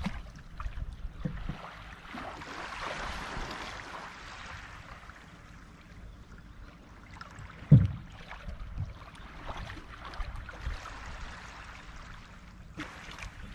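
Seawater lapping and sloshing at the water's edge, with one loud knock nearly eight seconds in.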